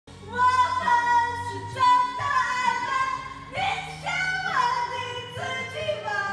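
A woman singing a melody over a soft backing track, holding long high notes and sliding between them.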